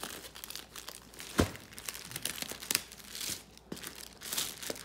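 Clear plastic poly bag crinkling and rustling as hands pull it open around a fabric plate carrier, with one sharp click about a second and a half in as the loudest moment.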